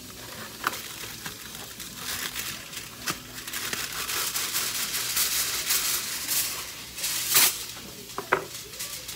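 Aluminium foil being pulled off its roll and handled, crinkling and rustling, with a louder sharp crackle about seven seconds in.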